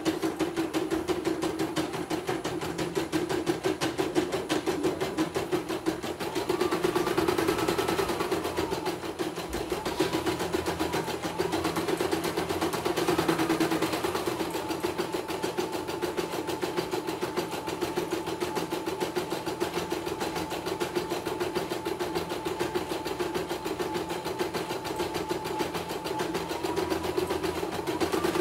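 CNY E900 portable embroidery machine stitching steadily: a fast, even needle clatter over a steady hum, with a faint whining tone that rises and falls a few times.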